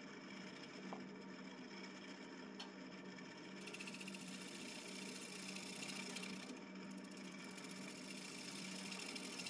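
Wood lathe motor running with a steady hum. About three and a half seconds in, a turning tool starts cutting the spinning red cedar blank, adding a high hissing scrape that stops briefly a few seconds later and then resumes.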